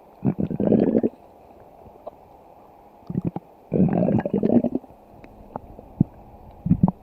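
Cartoon stomach growling in separate rumbles: one about a second long near the start, a short one just after, another about a second long around the middle, and a short one near the end.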